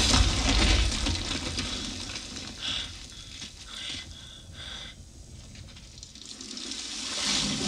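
Film soundtrack of floodwater rushing over barricades, a dense wash of water noise with heavy deep bass. It is loud at first and dies down toward the middle, where a few short high-pitched sounds come through, then swells again near the end.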